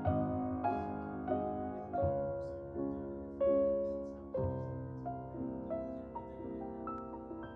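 Soft solo piano background music: chords struck about every half-second that fade, thinning to quieter single notes in the second half.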